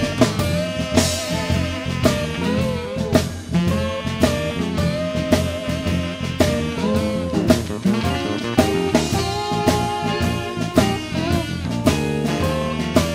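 Blues band playing an instrumental passage: electric guitar and drum kit, with a steady beat.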